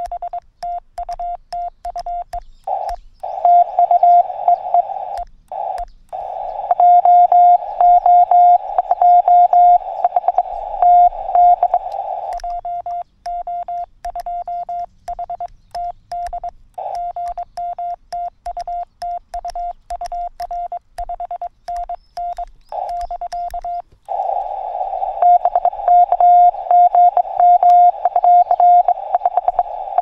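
Morse code (CW) from a Yaesu FT-818ND transceiver: one steady tone keyed on and off in dits and dahs without a break. In several stretches the signal is louder and comes with receiver hiss around it.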